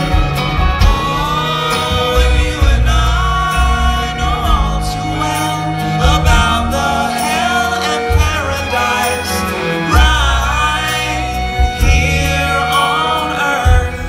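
A string band playing live with a lead voice singing: acoustic guitar, banjo, fiddles and upright bass with drums, heard from the audience in a concert hall.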